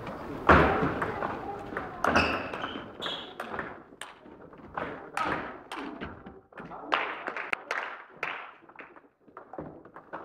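Table tennis rally: the ball knocking off the paddles and bouncing on the table in quick, irregular taps, with footsteps on a wooden sports-hall floor, echoing in the large hall.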